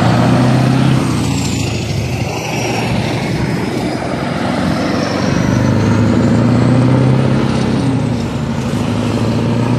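Heavy truck diesel engines driving past one after another, a loud low engine drone that fades slightly and then swells again about five seconds in.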